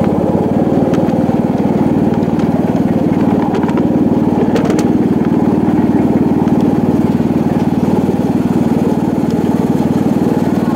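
Small engine of a ride-on miniature train running steadily at an even speed, with a few faint clicks about halfway through.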